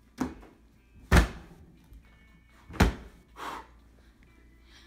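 Three heavy thumps, the second the loudest, with a short soft rustle after the third.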